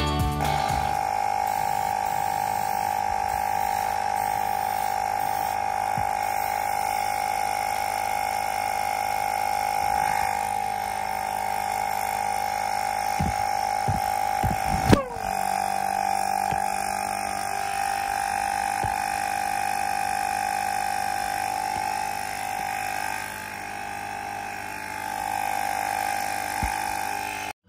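A small motor running with a steady buzzing drone; about halfway through there is a sharp click and a brief falling sweep in pitch before the drone carries on.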